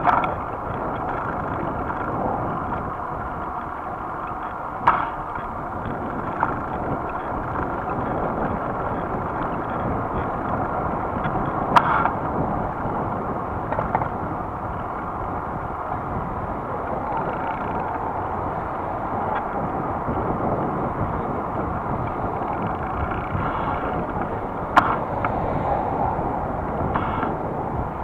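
Steady riding noise of a bicycle rolling on asphalt, picked up by a camera mounted on the bike: tyre hum and wind rush, muffled, with a few sharp knocks as the bike and camera jolt over bumps.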